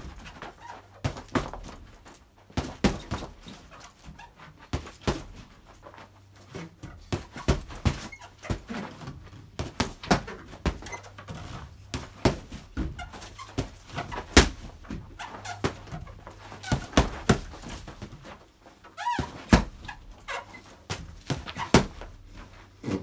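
Gloved punches and a kick landing on a hanging heavy bag, thudding in irregular flurries of one to three hits a second. A short animal call is heard about 19 seconds in.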